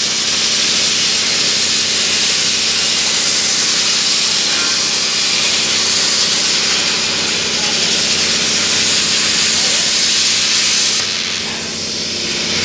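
CNC plasma cutting torch cutting thin sheet metal: a loud, steady hiss over a low steady hum. The hiss drops away briefly about eleven seconds in, then comes back.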